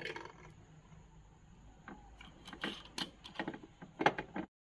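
Scattered light clicks and knocks of glassware being handled and set down on a dinner table, coming more often in the second half and cutting off suddenly near the end.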